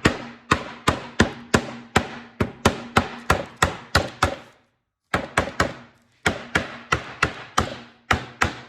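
Hammer tapping glued wood wedges in a clamped segmented bowl ring, knocking them down flat: a fast, even run of sharp taps, about three a second, with a short break a little past the middle.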